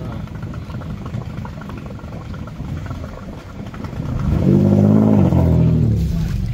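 Off-road 4x4's engine running, then revved up about four seconds in, its pitch rising and falling back over a couple of seconds, as the vehicle drives back and forth through deep flood water.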